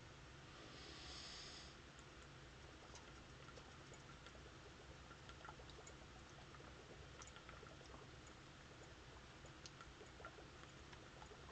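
Near silence: faint room tone with a low hum and small scattered ticks, and a brief faint hiss about a second in.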